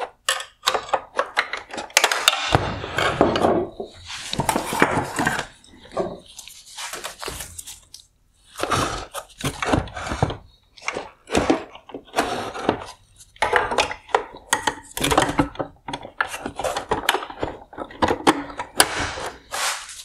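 Hard plastic parts of a 2020 Maserati Levante LED headlight being pried and handled: many sharp clicks and knocks with short rattling, clattering stretches as an upper wire harness connector is popped off and the inner parts are worked loose.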